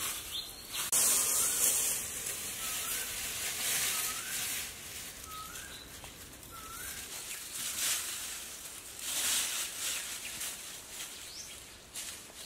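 Dry grass thatch rustling in bursts as it is handled and pressed into place. A bird repeats a short rising chirp five times, evenly spaced, through the first half.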